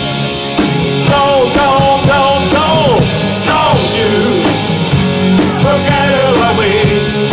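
Live rock band playing loud: electric guitars and drums, with a melody line that glides up and down over a steady drum beat.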